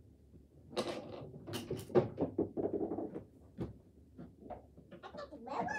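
Irregular light knocks, taps and rustles of small objects being handled. A high, sliding whine begins near the end.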